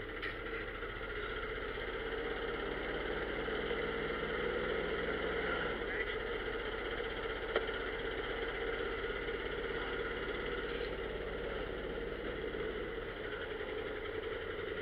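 Tow truck engine running and road noise, heard from inside the cab while driving. The steady hum's low engine note shifts about six seconds in and again near the end.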